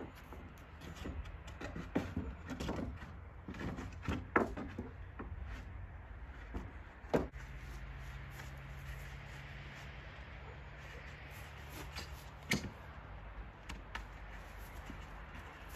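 Wooden planks knocking and clattering against each other as they are handled and set in place, with irregular sharp knocks, busiest in the first half.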